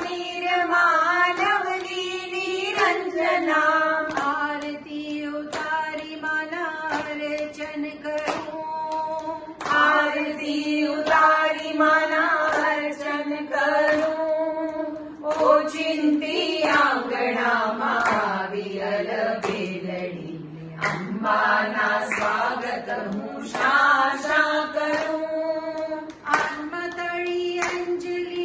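Group of women singing a Gujarati garba to the goddess Amba, with hand claps keeping a steady beat.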